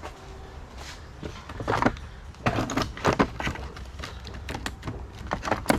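Irregular clicks, scrapes and rattles of tools and screws being worked loose on an ATV's air box lid, with the busiest handling about two seconds in and again near the end.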